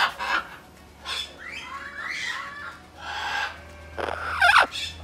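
Birds squawking: several short, harsh calls, the loudest a falling screech near the end.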